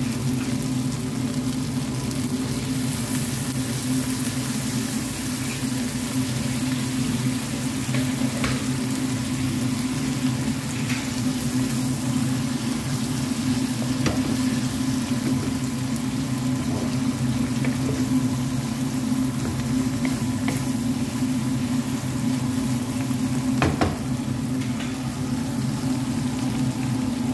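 Chicken, onions and green peppers frying in a bubbling sauce in a granite-coated pan, a steady sizzle with a low hum underneath. A few light clicks come through now and then.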